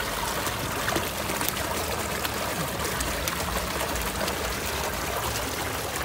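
Pond water trickling and running steadily.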